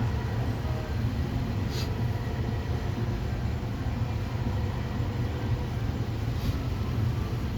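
Steady low mechanical drone at a constant level, with two faint brief high hisses about two seconds and six and a half seconds in.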